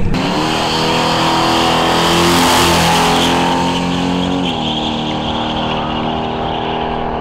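Drag-racing pickup truck's engine revs up and holds a steady high pitch, then drops in pitch about four and a half seconds in and keeps running as the truck pulls away down the strip.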